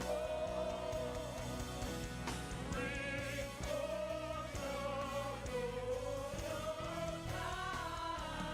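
Congregational gospel worship singing: a lead voice and choir holding long, wavering notes over a band with a steady beat.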